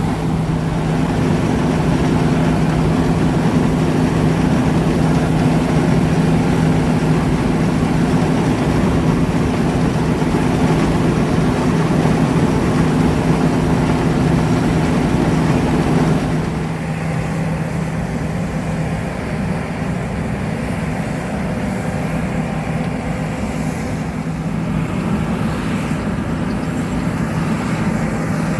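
John Deere S780 combine harvester running steadily, a constant engine and machinery hum over a broad hiss. About two thirds of the way through, the sound drops a little, with the upper hiss and one of the hum tones falling away.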